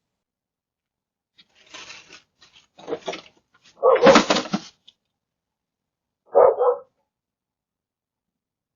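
Dog barking in a few separate barks, the loudest about four seconds in.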